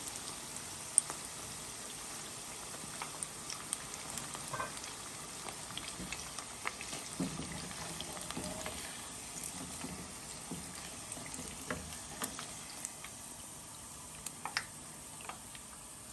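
Battered chicken pieces frying in hot oil: a steady sizzle and bubbling, with scattered sharp pops and clicks.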